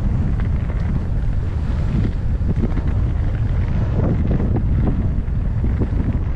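Wind rushing over an action camera's microphone on a mountain bike descending a dirt singletrack at about 23 km/h: a loud, steady low rumble, with faint ticks and rattles from the bike running over the trail.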